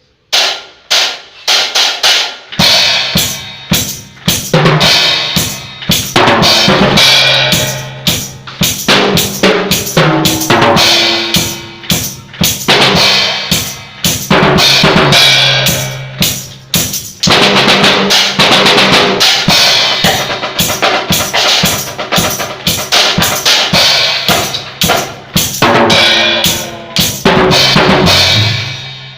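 Drum kit played continuously: rapid kick drum, snare and cymbal hits. Low held notes join underneath about two seconds in.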